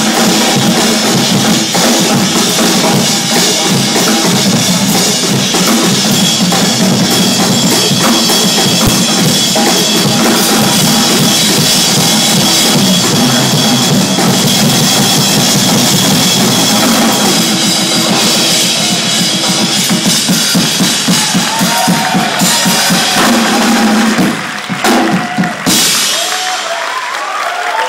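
Live drumming by a group of drummers: a dense, fast stream of drum and bass-drum strokes that stops about 24 seconds in, followed by a few last separate hits.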